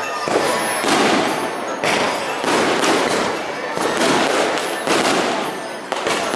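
Fireworks going off in quick succession: a sudden burst roughly every half second to second, each fading off before the next.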